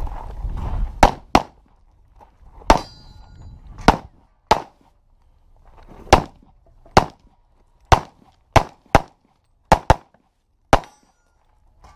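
Handgun shots in a practical pistol stage: about a dozen sharp reports fired singly and in quick pairs, with pauses between groups as the shooter moves between positions.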